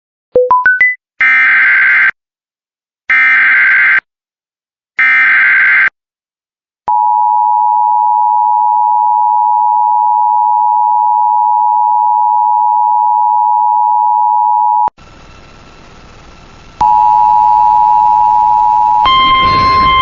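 Emergency Alert System broadcast tones: a short rising run of four beeps, then three one-second bursts of the screeching SAME digital header, then the two-tone EAS attention signal held steady for about eight seconds. Near the end, after a brief low hiss, the two-tone signal sounds again briefly, followed by a single higher steady tone. These tones open a National Weather Service flash flood warning.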